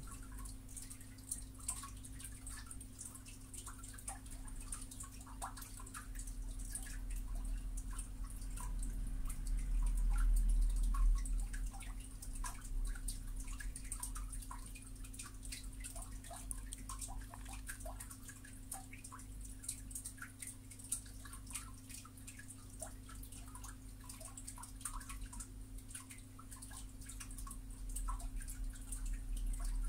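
Quiet room tone: a steady low hum with faint, irregular small clicks and ticks scattered throughout, and a low rumble that swells around ten seconds in.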